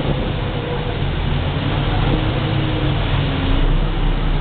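Motorboat engine running steadily under way, a constant low drone, with water rushing and splashing along the hull.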